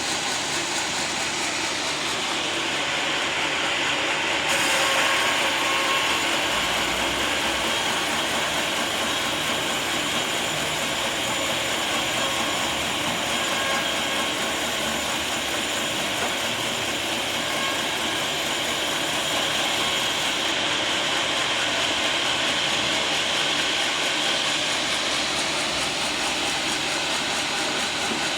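Sawmill saw cutting through a teak log, a loud steady mechanical noise. It turns harsher and brighter about four seconds in and softens again about twenty seconds in.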